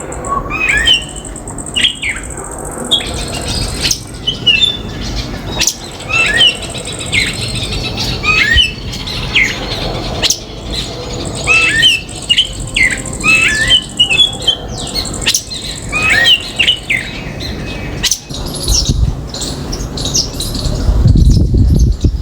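Common myna calling: a long run of short squawks and whistled, sweeping notes, repeated every second or so. A low rumbling noise builds near the end.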